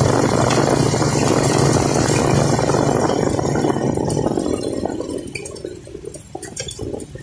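Motorcycle engine running, with wind rushing over the microphone while riding. About four seconds in, the engine hum and wind die down as the bike slows, leaving scattered clicks and rattles.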